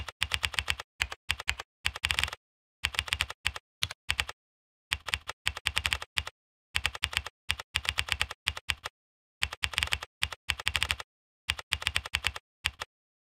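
Computer keyboard typing in quick bursts of keystrokes, with short dead-silent pauses between the bursts; the typing stops shortly before the end.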